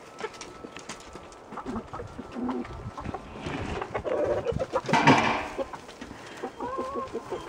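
Chickens clucking and calling, with one louder, fuller call about five seconds in.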